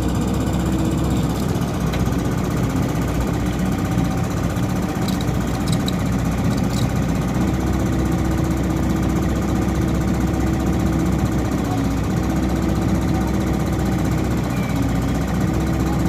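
Small excavator's diesel engine running steadily under load, its note sagging briefly twice near the end as it strains to shift a large wooden fishing boat.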